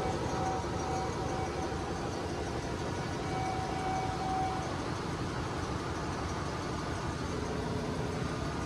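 Steady drone of running machinery in a ship's engine room, with a few faint steady tones over it.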